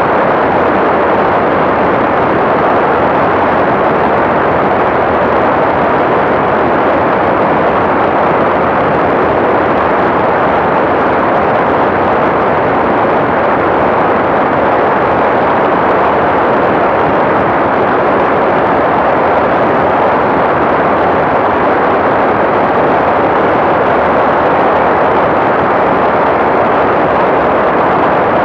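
Steady, loud rush of airflow over a camera microphone on an ultralight aircraft in flight. It is an even noise with no distinct engine note and no changes.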